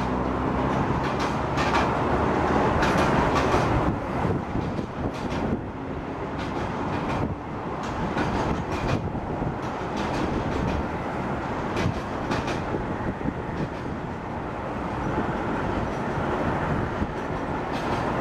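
Freight train of container wagons rolling past: a steady rumble of steel wheels on rail, with repeated clacks as the wheels cross rail joints.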